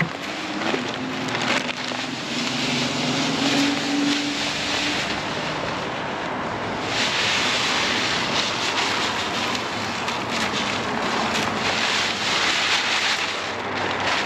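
Husqvarna TS348D lawn tractor engine running, its pitch rising a little over the first few seconds. A steady rushing hiss sits over it throughout and grows louder from about seven seconds in.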